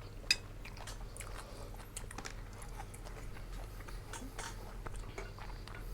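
Close eating sounds: biting and chewing food, with scattered small clicks and crunches, a sharper click about a third of a second in, over a steady low hum.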